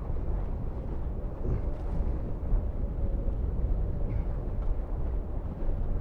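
Wind buffeting the microphone and water rushing past the hulls of a Tornado catamaran sailing fast upwind. A faint steady hum runs underneath.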